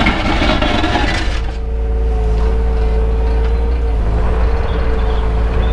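Takeuchi TB235 mini excavator running under load, heard from inside the cab: a steady low engine hum with a steady whine over it. The first second and a half is noisier.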